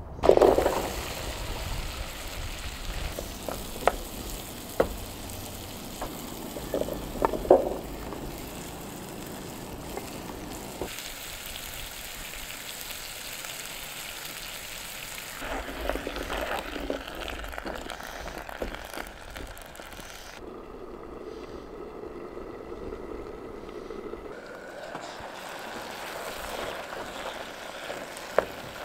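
Butter, and then sliced sweet potatoes and onions, sizzling in a pot on a portable butane stove. A spoon stirring against the pan gives a few sharp clicks in the first eight seconds or so.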